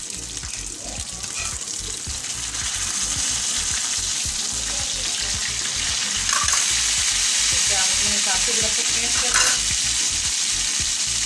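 Beef slices frying in oil on an iron tawa, with vinegar just spooned in. The steady sizzle grows louder over the first few seconds.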